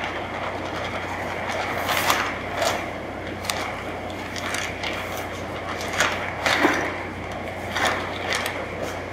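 Dry tile mortar powder pouring from a paper bag into a bucket of water, with the bag's paper crackling and rustling several times as it is shaken and handled.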